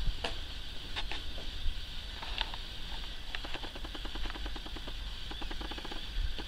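A Cavalier King Charles spaniel sniffing hard, with a quick run of short snuffles about ten a second in the middle, over wind rumbling on the microphone.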